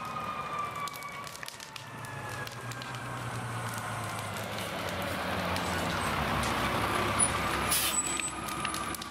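Fire engine arriving: a wailing siren fades out in the first second or so, then the truck's diesel engine runs steadily and grows louder as it draws near, with a short sharp hiss near the end.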